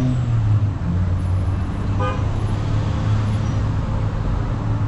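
Steady low drone of vehicle engines and traffic, with one brief horn toot about two seconds in.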